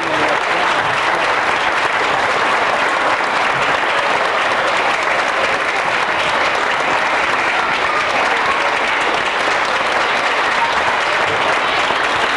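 Audience applauding: a long, steady round of clapping from a full congregation.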